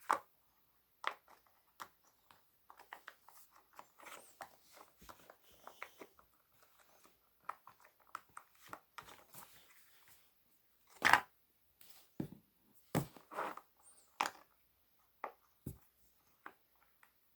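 Silicone pop-it fidget toys being handled: irregular soft pops and clicks, with a few louder knocks.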